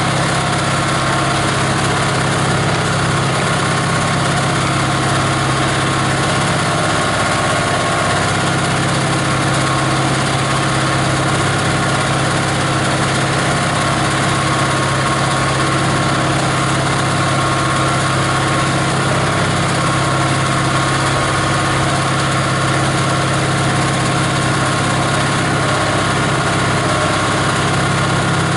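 The grinder's 18 HP diesel engine running steadily at a constant speed.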